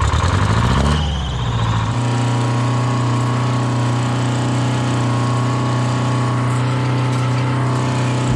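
Old farm tractor engine picking up speed, its pitch rising over the first couple of seconds, then running steadily as the tractor drives along.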